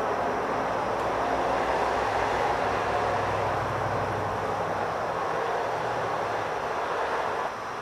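Steady rumbling noise with a low hum underneath, cutting off suddenly near the end.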